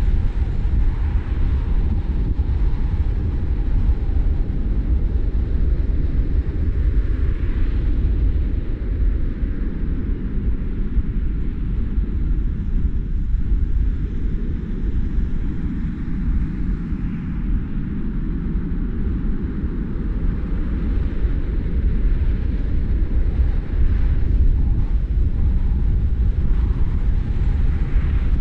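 Steady low rumble of a car driving: road and tyre noise with engine drone, with no distinct events.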